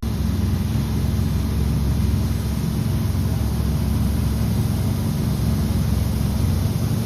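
Heavy farm machinery engine running steadily under load, a constant low rumble with a hissing haze over it.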